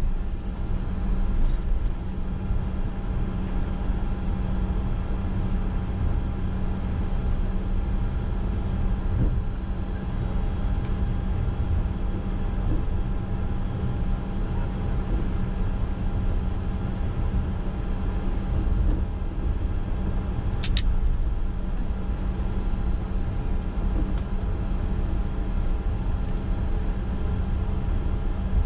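Steady cockpit noise of a Bombardier Challenger 605 taxiing: its twin turbofans at idle hum with several constant tones over a low rumble. A single short, sharp click about twenty seconds in.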